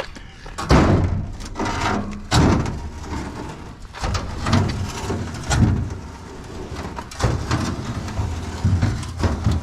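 Heavy scrap metal being shifted and dragged about: a run of scrapes and knocks, a loud one every second or two.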